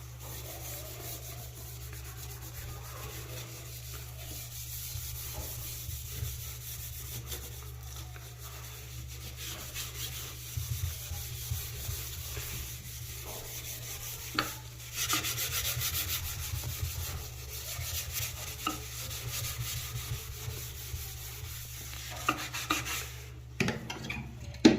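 Scrubbing a bathroom surface with a brush and cleaner: steady scratchy rubbing that grows louder for a few seconds around the middle and again near the end.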